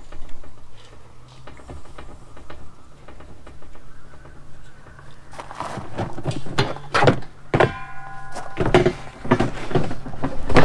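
A run of knocks and thumps of a door and things being handled inside an RV, starting about halfway through after a quieter stretch of faint clicks, with a brief high tone in the middle of the knocking.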